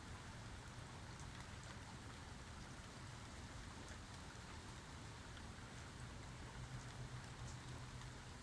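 Steady rain falling, with scattered small drop ticks over a low, steady rumble.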